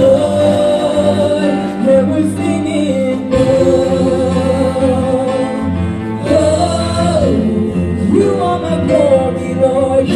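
A church worship team singing a gospel worship song into microphones, women's voices leading, with long held notes over a steady low accompaniment.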